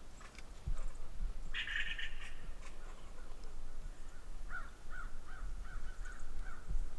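Crows cawing: one harsh call about a second and a half in, then a run of five or six shorter caws near the end.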